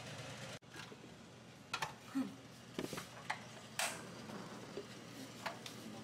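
A steady hum cuts off under a second in. Then come a handful of sharp, scattered clicks and knocks from a portable butane gas stove being handled and lit.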